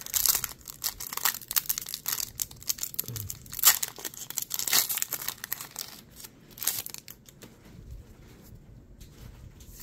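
Pokémon card booster pack's foil wrapper crinkling and tearing open, a run of sharp crackles that dies down after about seven seconds.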